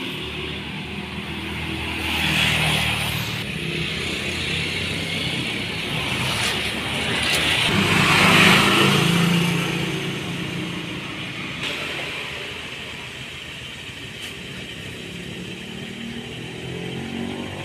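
Road traffic: motor vehicles passing on a nearby road, their engines swelling up and fading away. The louder pass comes about eight seconds in.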